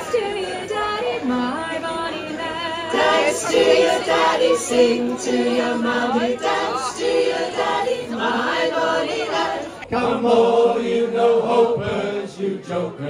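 A group of voices singing a sea shanty together in chorus, with an abrupt cut about ten seconds in, after which the singing continues.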